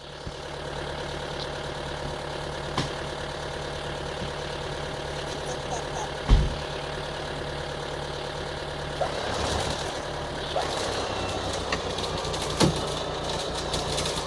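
A 4x4's engine idling steadily, with a few dull thumps. From about nine seconds in, a patter of clicks and crackles joins it.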